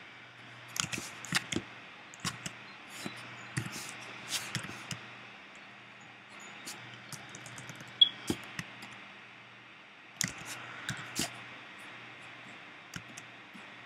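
Scattered light clicks and taps of computer input while painting digitally, the sharpest about eight seconds in, over a faint low hum that comes and goes.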